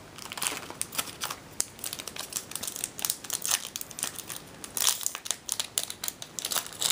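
Foil Yu-Gi-Oh! booster pack wrapper crinkling in many quick, irregular crackles as hands handle it and work it open.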